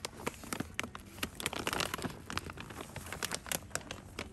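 Plastic bag of guinea pig pellets crinkling as it is handled on a store shelf: a run of irregular small crinkles and clicks.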